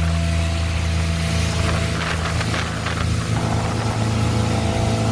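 Motorboat engine running steadily at speed with the rushing of water and spray along the hull, the boat pulling a tow tube.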